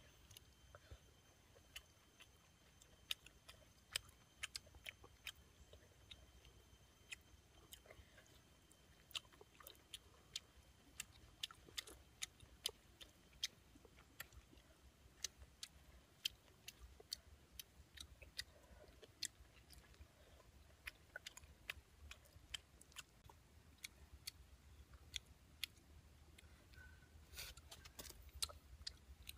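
A person eating grilled catfish by hand: quiet chewing with many small, sharp mouth clicks and smacks at irregular intervals, a few coming in a quick cluster near the end.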